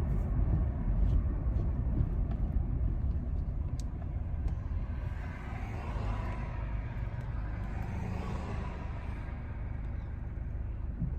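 Steady low vehicle rumble, like car road noise, with a wash of hissing noise that swells for a few seconds in the middle.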